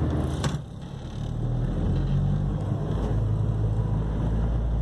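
Car engine and road noise heard from inside the cabin, a steady low hum. A short click comes about half a second in, and the noise dips briefly before settling back.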